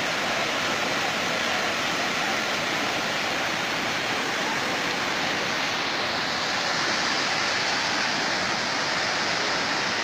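Floodwater of a swollen river rushing steadily, a dense unbroken roar of water.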